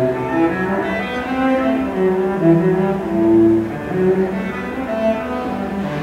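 Cello music: a bowed melody of held notes that change about every half second, often with two or more notes sounding together.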